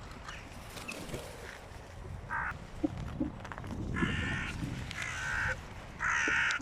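Hooded crows cawing as they squabble over food on the ground: four calls, each about half a second long, the last near the end the loudest.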